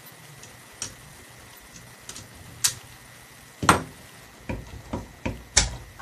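Plastic fan blade and homemade galvanized-wire puller knocking and clicking as they are lifted off the fan's motor shaft. There are scattered light clicks at first, then a louder knock a little past halfway and a few more knocks close together near the end.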